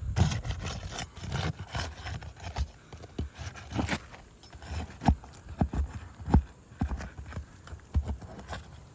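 Hand tools working on asphalt roof shingles during a shingle repair: irregular scraping and rubbing with sharp knocks, the knocks coming more often in the second half.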